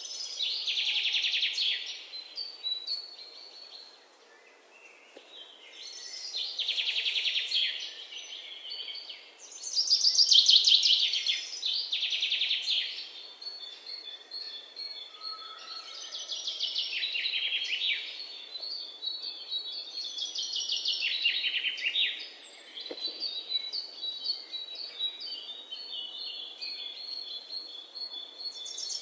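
Birds chirping in rapid high trills, coming in loud bursts of one to two seconds every few seconds, over a faint steady background hiss.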